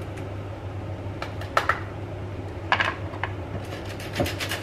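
Metal flour sifter tapping and clinking against a plastic mixing bowl as flour is sieved: a handful of separate dry taps, over a steady low hum.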